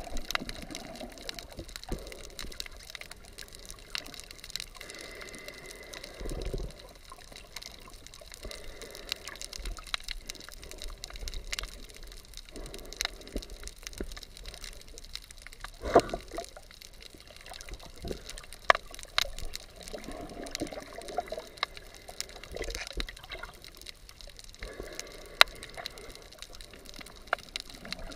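Underwater sound picked up by a submerged GoPro: muffled water movement with many scattered sharp clicks and a few louder knocks.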